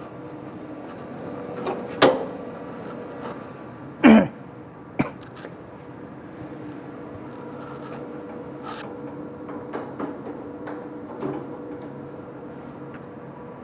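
Sharp clunks and clicks of a DTF printer's film roller and pinch-roller hardware being handled, the loudest a knock about four seconds in with a short downward-sliding ring, followed by lighter clicks, over a steady hum.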